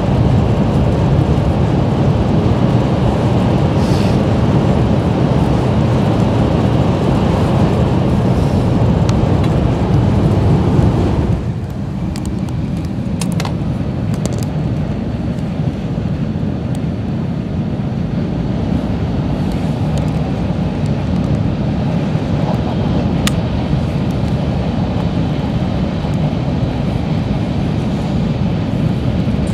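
Running noise of a JR West 700-series Rail Star Shinkansen at speed, heard from inside the passenger car: a loud, steady rumble of wheels and air. About eleven seconds in it drops suddenly and becomes thinner, as the train comes out of a tunnel into the open.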